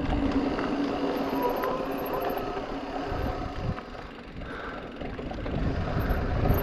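Giant Reign E+ electric mountain bike ridden along a dirt trail: tyre and wind rumble with a steady hum for the first few seconds, easing off in the middle and building again near the end.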